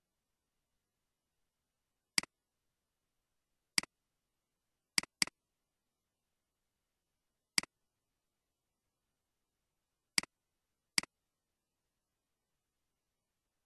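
Computer mouse button clicking seven times at uneven intervals, with two clicks in quick succession about five seconds in.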